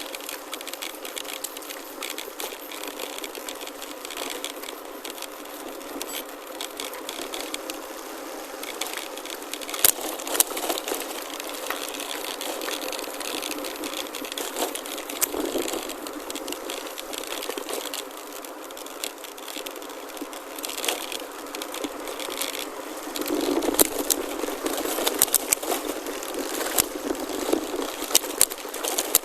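Chromoly gravel bike rolling over a gravel forest road: a steady crunching hiss of tyres on loose stones, with frequent clicks, knocks and rattles from the bike over bumps, more of them near the end.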